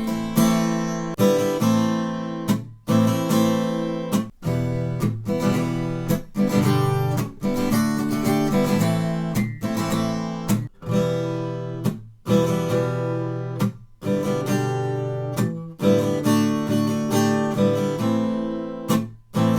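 Acoustic guitar strummed in the galloping 'galop' pattern of three strokes (down, up, accented down), with the strings briefly muted between groups so the chords keep cutting off for a moment.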